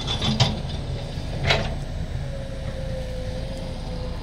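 Kobelco hydraulic excavator's diesel engine running with a steady low rumble, with two short noisy bursts about half a second and a second and a half in, and a faint steady whine in the second half.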